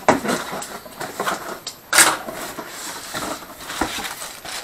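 A box and its packaging being opened and handled by hand: irregular rustling and scraping with a few sharp clicks, the loudest a sharp crackle about two seconds in.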